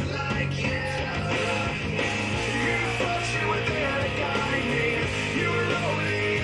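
Rock music with guitar, playing steadily.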